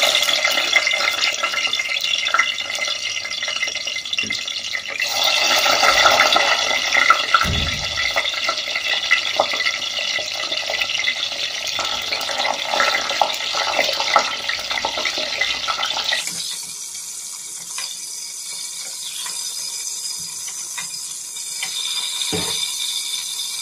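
Kitchen tap running into the sink, the stream changing sound twice as it falls on different things, with a few small knocks and clicks.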